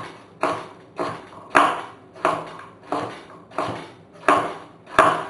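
A kitchen knife chopping a carrot into pieces on a wooden cutting board: about nine even knocks of the blade on the board, roughly three every two seconds.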